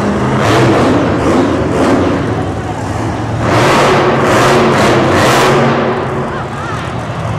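Monster truck engines running loud, surging louder for a couple of seconds from about three and a half seconds in.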